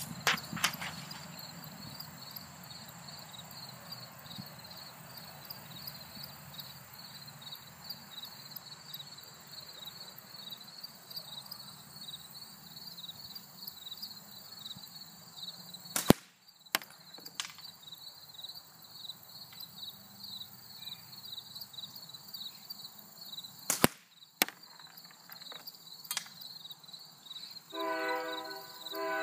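Slingshot shots striking a paper target and the cloth backstop behind it: a few sharp smacks, the loudest about 16 and 24 seconds in, over steady insect chirping. Near the end a held chord of steady tones begins.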